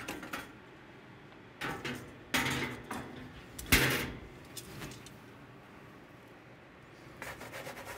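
Metal cooking utensils and a metal pizza peel being handled at a grill: a few scrapes and clanks, the loudest a sharp knock a little before four seconds in.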